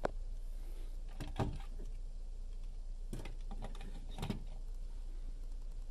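A few light plastic clicks and knocks from handling a Plantronics wireless headset as it is lifted off its charging base, spaced a second or two apart over a faint steady low hum.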